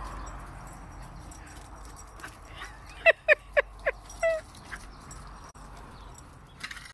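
Small dog yipping: about five quick, high yips in a burst a little past halfway, over quiet outdoor background noise.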